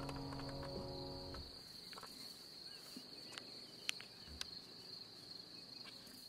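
A background music chord fading out in the first second and a half, leaving a steady, high-pitched insect trill with a few faint, short chirps over it.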